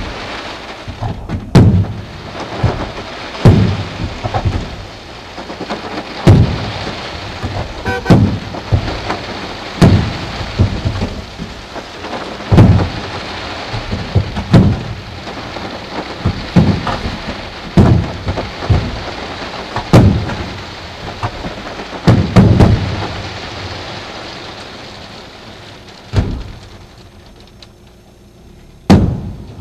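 Aerial firework shells bursting with loud bangs every second or two over a steady crackling hiss of glittering stars. The barrage thins out near the end, with two last bangs.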